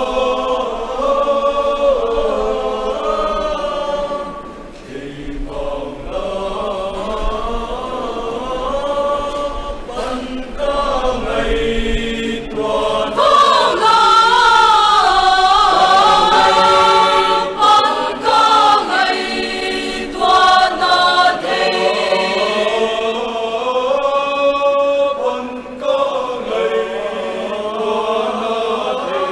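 Mixed choir of men's and women's voices singing a hymn together, growing loudest and highest about halfway through.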